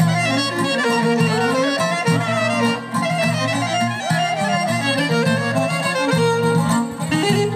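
Live Greek folk band playing a kalamatianos dance tune, a violin leading the melody with sliding ornaments over a steady bass line.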